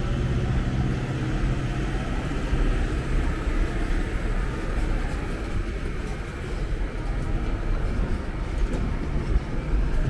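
City street noise with the steady low engine rumble of a tourist road train driving past close by.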